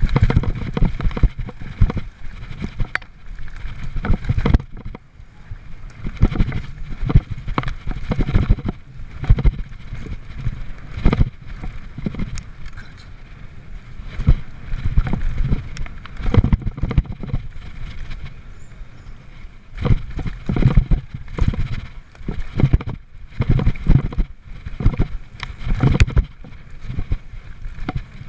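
Mountain bike ridden fast down a dirt and gravel trail: tyres rumbling over the ground in irregular surges, with frequent sharp knocks and rattles from the bike as it hits bumps and rocks.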